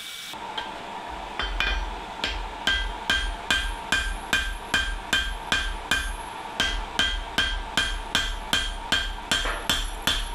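Hand hammer striking glowing-hot steel on an anvil in steady, even blows, about two and a half a second, each with a short metallic ring from the anvil, as the facets of the forging are cleaned up. A steady low hum runs underneath.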